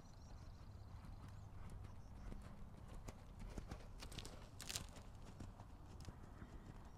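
Faint hoofbeats of a horse cantering on a sand arena, with a couple of sharper clicks a little past four seconds in.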